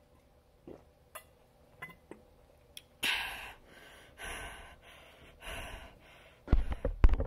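A person breathing out hard: three loud breathy puffs about a second apart, then a few low thumps near the end.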